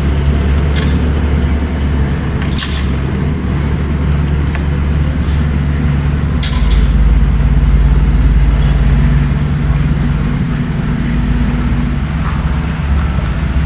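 Bulldozer's diesel engine running steadily, its low note swelling for a couple of seconds in the middle, with a few sharp clanks.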